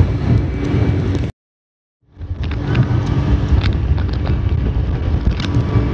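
Speedboat running underway: a steady engine drone under rushing wind and water noise, cut off by about a second of dead silence at an edit in the first seconds, then resuming.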